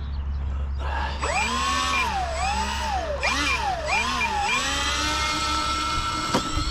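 Twin electric brushless motors and propellers of an RC plane whining. The pitch dips and rises several times as the throttle is worked, then holds steady, with one sharp click near the end as the pitch starts to climb.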